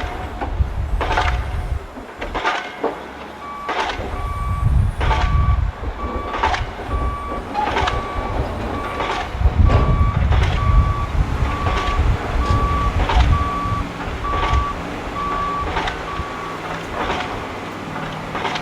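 A construction vehicle's reversing alarm beeping at a steady pace, about one and a half beeps a second, starting a few seconds in and stopping near the end, over a low engine rumble. Sharp knocks repeat throughout.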